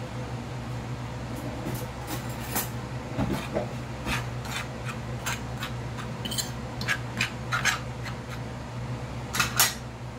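Metal fork scraping and clicking against a ceramic plate while stirring flour with salt and pepper: a string of light irregular clicks, the loudest pair near the end. A steady low hum runs underneath.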